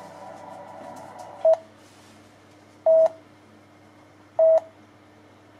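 Electronic test tones from a frequency-generator app played through an amplifier. A steady chord of several tones stops about a second in. Then a short, loud beep at one pitch repeats four times, about every second and a half.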